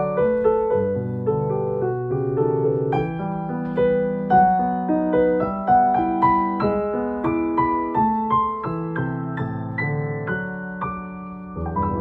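Piano played with both hands: a quick-moving melody of struck notes over sustained lower chords. A new low chord is struck near the end.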